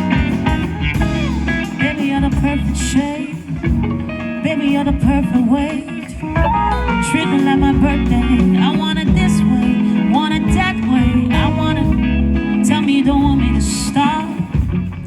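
Live band music: a guitar lead line with bent notes over bass and drums.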